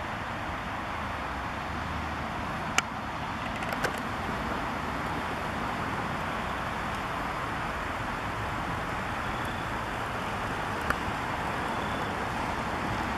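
Steady roadway traffic noise: a continuous rush of cars on a nearby parkway. A sharp click about three seconds in, with a couple of fainter clicks later.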